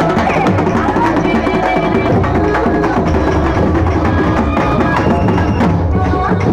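Loud festival music driven by fast, dense drumming, with a melody line over the beat.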